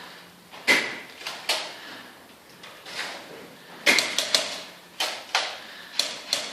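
Airsoft guns firing: about ten sharp, irregular cracks, some in quick runs of two or three shots.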